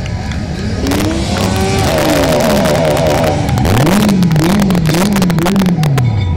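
A vehicle engine revved hard: the pitch climbs, stutters rapidly at the top, then rises and falls in a run of throttle blips before dropping away near the end, with sharp cracks throughout.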